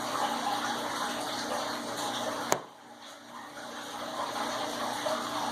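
Fish tank water and filter running steadily, with a low hum under the splashing. About two and a half seconds in, a sharp click, after which the sound drops away for about a second before coming back.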